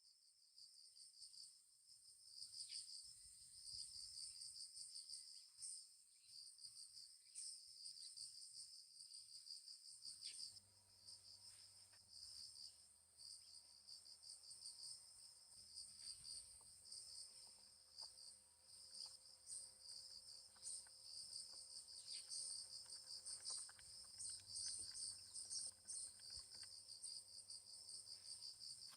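Crickets chirping in a faint, continuous pulsing trill, two high-pitched choruses at different pitches overlapping.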